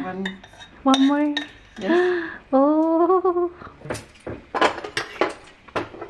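Dishes and cutlery clinking, with a run of short sharp clinks in the second half. Several short wordless vocal sounds come in the first half.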